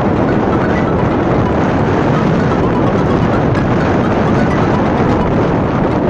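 Motorcycle on the move, with steady wind rush and engine and road noise.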